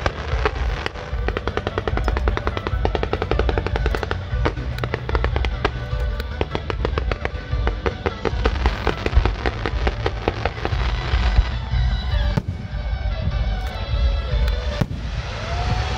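Fireworks display with dense, rapid crackling pops and bursts over music, the crackle thinning out about twelve seconds in before a single loud bang near the end.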